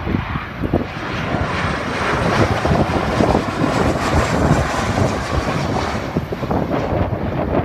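Jet airliner engines running at high power, a steady rushing noise that builds about a second in and holds, with gusty wind buffeting the microphone.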